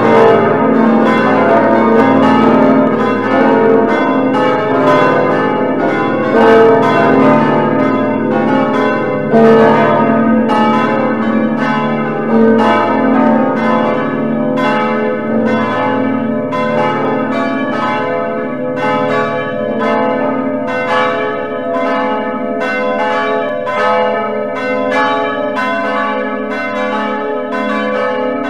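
Full peal of several church bells ringing together, their strikes overlapping in an irregular pattern with long ringing tones; the deepest bell drops away about three-quarters of the way through.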